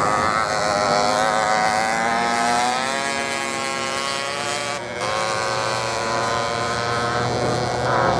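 Off-road motorcycle engines running on a sand race course, one revving up and rising in pitch a few seconds in. The sound breaks off near the middle, then a steadier engine note carries on.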